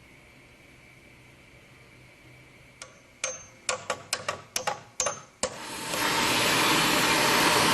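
About eight sharp metallic clicks or knocks in quick succession, then a loud steady hiss that sets in about six seconds in.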